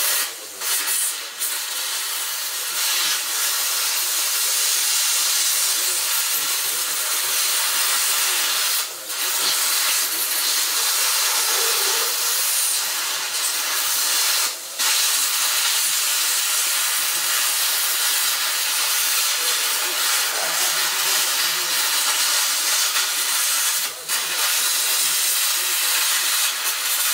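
Plasma cutter hissing steadily as it cuts a suspension control arm to free its silent-block bushing. The hiss is briefly interrupted a few times.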